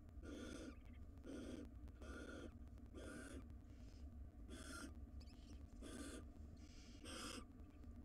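Barn owls in a nest box giving hissing 'snore' calls: harsh, breathy hisses, each under half a second, repeated irregularly about once or twice a second.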